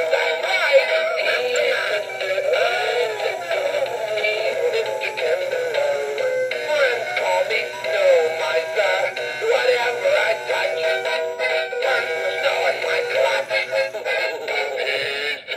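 Gemmy 2007 Mini Blue animatronic figure playing its song: a male singing voice over a backing track, thin and tinny, with no bass.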